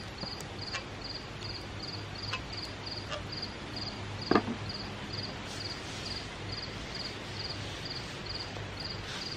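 A cricket chirping in a steady rhythm, about two chirps a second, over a faint low hum, with one brief knock about four seconds in.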